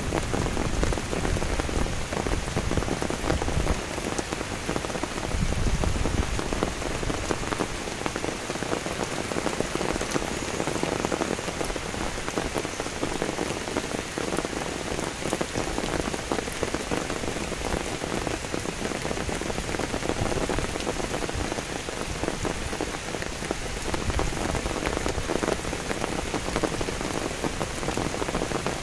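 Steady rain falling on grass, leaves and stone, a continuous hiss dense with small drop ticks. There is some low rumbling in the first several seconds.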